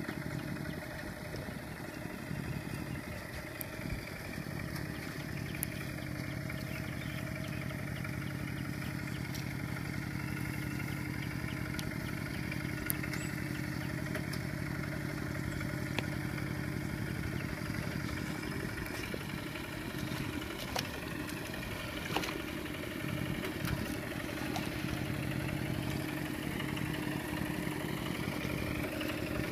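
Kubota RT120 single-cylinder diesel engine of a two-wheel walk-behind tractor running steadily as the tractor works through thick paddy mud, with a few sharp clicks along the way.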